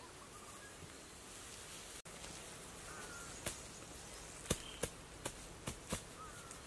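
Grass turf being slapped and pressed down by hand onto a packed-earth mound: about six sharp slaps in the second half. Under them is a steady forest background with a few short bird chirps.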